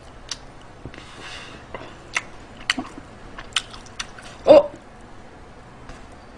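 Close-miked eating: chewing and lip smacks with scattered sharp clicks. About four and a half seconds in comes one short, loud vocal sound.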